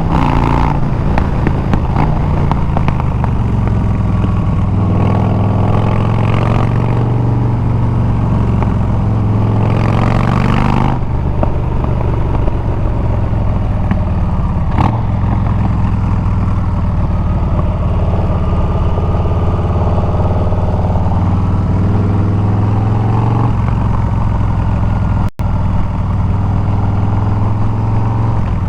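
Harley-Davidson Milwaukee-Eight 114 V-twin with a Bassani exhaust running steadily under way at cruising speed. The engine note drops a little about 23 seconds in as the throttle eases.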